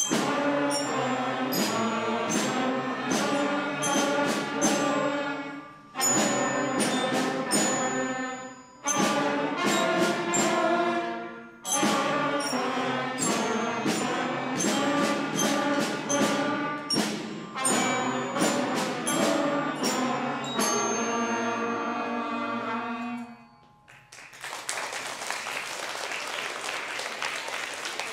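Fifth-grade school concert band of flutes, clarinets, saxophones, trumpets, French horn, trombones and mallet percussion playing a simple tune in short phrases. The band stops about 23 seconds in and applause follows.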